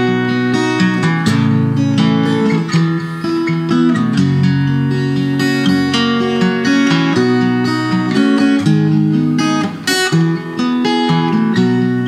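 Acoustic guitar playing a traditional folk tune, its chords changing every second or two.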